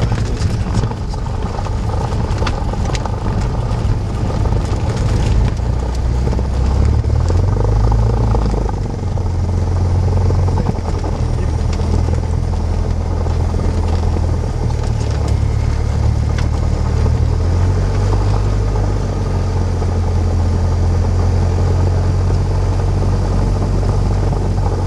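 Cessna 172's piston engine running at low taxi power, heard from inside the cockpit as a steady low drone from engine and propeller. The engine note shifts a couple of times as the throttle changes, and light knocks and rattles come through in the first few seconds as the aircraft rolls over grass.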